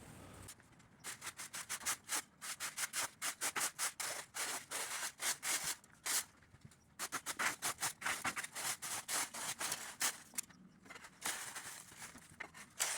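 A hand tool scraping across the ground in quick repeated strokes, several a second, with short pauses between runs, as in raking or pooper scooping.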